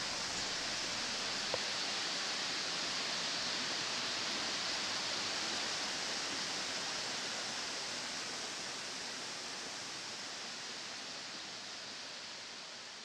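A steady rushing hiss, like running water in a forest, holding level and then slowly fading out over the last several seconds.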